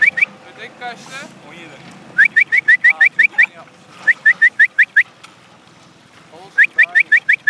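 A dog yelping excitedly in quick bursts of high-pitched rising yips, three bursts of six to eight yips each.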